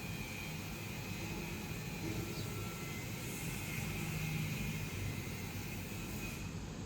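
Steady whooshing hum with a faint high whine, its hiss thinning out near the end.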